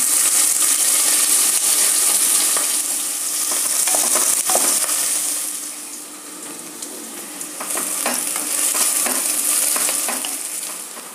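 Sliced onions sizzling in hot oil with mustard seeds and green chillies, stirred with a spatula that scrapes against the pot now and then. The sizzle is loud at first, dies down about six seconds in and picks up again with the stirring before easing near the end.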